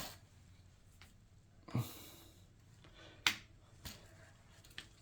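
A few faint, separate clicks and taps of plastic model-airplane parts being handled and fitted together, the sharpest a little over three seconds in.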